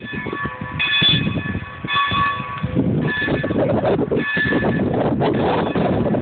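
Steam locomotive's bell ringing about once a second as the train rolls in, over the low rumble and chuff of the engine and its cars.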